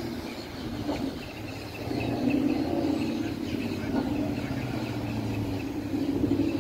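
Ford Mustang engine running as the car rolls slowly past, a low, uneven burble that grows louder about two seconds in.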